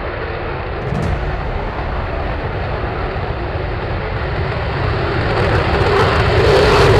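Jet aircraft engine noise: a dense rumble with a hiss that builds steadily in loudness and gets brighter toward the end, as a jet draws closer. There is a short sharp click about a second in.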